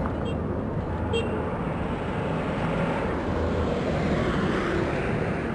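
Steady rushing background noise like road traffic, with a couple of faint clicks in the first second or so and a slight swell in the middle.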